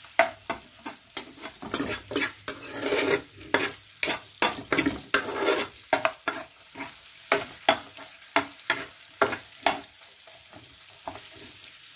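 A cooking utensil stirring, scraping and knocking against a pan while ingredients sauté in hot oil, with a steady sizzle underneath. The knocks come in a quick irregular run and stop about ten seconds in, leaving only the sizzle.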